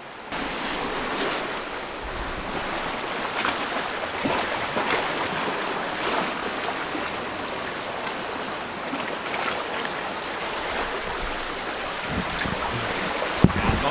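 Sea surf washing over rocks, a steady rush of waves. There are a couple of sharp knocks near the end.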